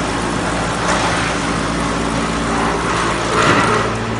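Large drum-type wood chipper running: a steady machine hum over a dense rushing noise, with two brief louder surges about a second in and near the end.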